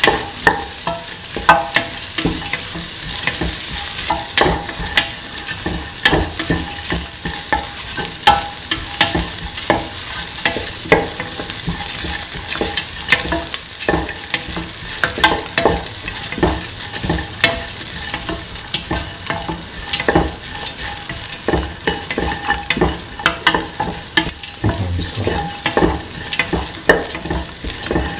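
Sliced onions frying in hot oil in a stainless steel pan, sizzling steadily while being stirred, with frequent irregular clicks and scrapes of the utensil against the metal pan. They are being sautéed until they lose their pinkish colour.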